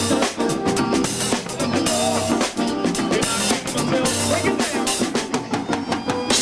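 Live band playing an up-tempo groove, the drum kit to the fore with snare, rimshot and bass drum strokes over bass and other instruments.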